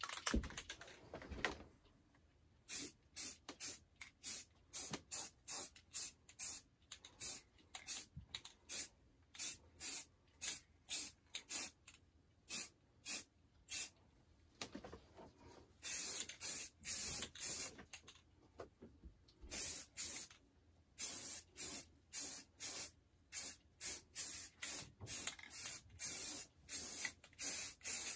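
Aerosol spray-paint can sprayed in quick short bursts, about two a second, as the rails of model railroad track are painted; a few longer sprays come a little past halfway.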